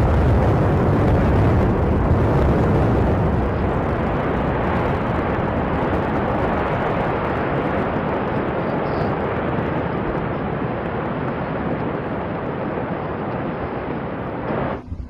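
Open-pit mine production blast: the sequenced charges going off and the rock face heaving make one continuous heavy rumble that slowly fades, then cuts off abruptly near the end.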